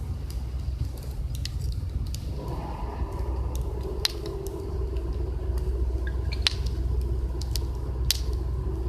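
Campfire wood crackling with sharp, scattered pops over a constant low rumble; about two and a half seconds in, a steady hum joins.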